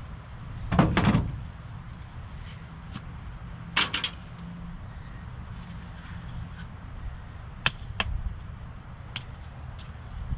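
Metal clanks and clicks of a hand grease gun being reloaded with a new grease cartridge, as the barrel, plunger rod and head are handled and screwed together. A loud double clank about a second in, another near four seconds, then lighter clicks near the end, over a steady low hum.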